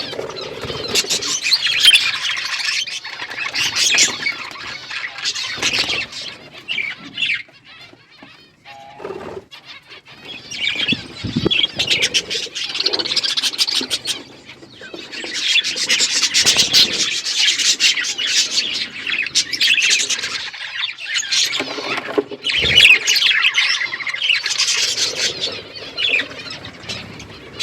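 A flock of budgerigars chattering and chirping in dense bursts of high, rapid calls, easing off for a few seconds about a third of the way through before swelling again. A few soft low thuds are heard among the calls.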